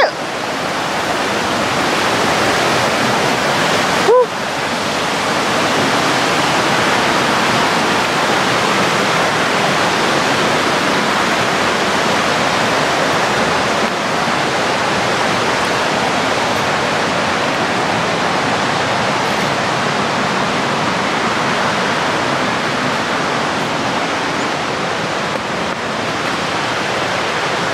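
Steady rushing of a river running over rapids, with a short breathy "whew" about four seconds in.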